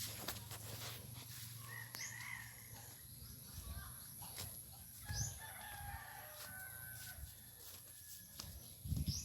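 A rooster crowing, faint, with short bird chirps and scattered clicks around it.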